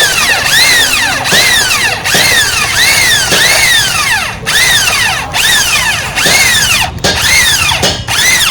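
Electric drill boring out a bolt hole for a handlebar mount. It runs with a high whine that rises and falls in pitch about once a second, with a few brief breaks.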